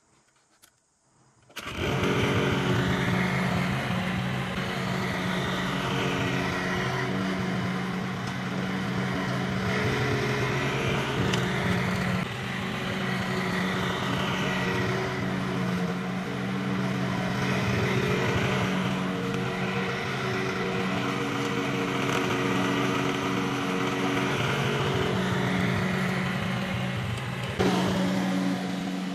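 Small gasoline engine of lawn-care equipment running steadily under load. It cuts in abruptly after about a second and a half of near silence, and a rise and fall in its upper sound recurs every few seconds.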